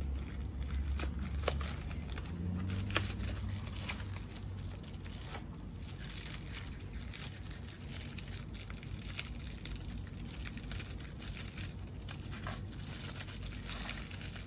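Insects chirring steadily and high-pitched outdoors, with scattered light clicks and knocks of footsteps and handling; a low rumble runs through the first few seconds.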